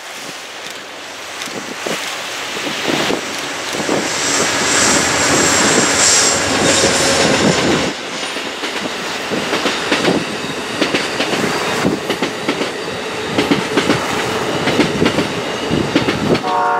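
An Amtrak passenger train of bi-level Superliner cars passes close by at speed, its wheels clicking rhythmically over rail joints. High wheel squeals come and go in the first half. A train horn starts to sound right at the end.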